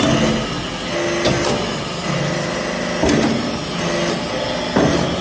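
Vertical hydraulic briquetting press running through a pressing cycle. A continuous mechanical hum carries a sharp knock three times, roughly every one and three-quarter seconds.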